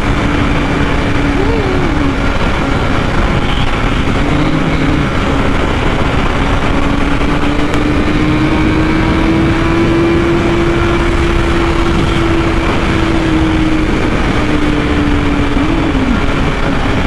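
BMW S1000RR inline-four engine running at steady high revs at highway speed, under a heavy, constant rush of wind noise. The engine note holds nearly level, rising a little through the middle and easing back near the end.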